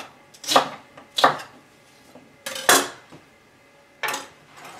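Large kitchen knife chopping rhubarb stalks on a wooden cutting board: two sharp chops in the first second and a half, then a louder, longer knock near the middle and a shorter one near the end.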